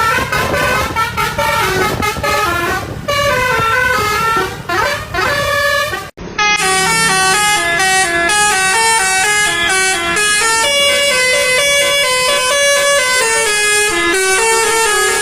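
Bus telolet basuri horns, multi-tone air horns playing tunes of stepped notes. A low engine rumble runs under the first six seconds. After a short break about six seconds in, another horn plays a longer, cleaner tune.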